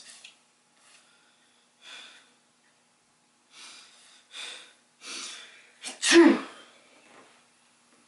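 A man sneezing: several short gasping in-breaths build up over a few seconds, then one loud sneeze about six seconds in that falls in pitch.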